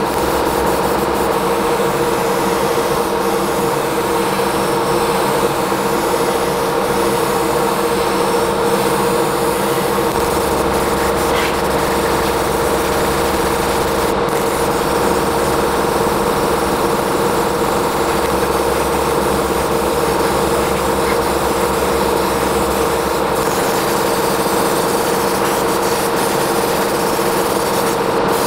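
A small high-speed power tool motor runs steadily with an even whine, with rubbing and rasping over it as it works against a surface.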